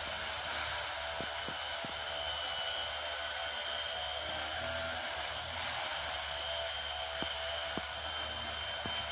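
Chorus of tropical forest insects such as cicadas, droning steadily at a high pitch. It swells a little about four to six seconds in.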